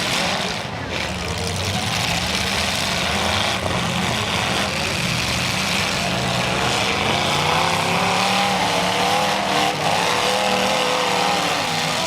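Demolition derby vehicles' engines running together, a steady drone with engines revving in wavering rises and falls in the second half.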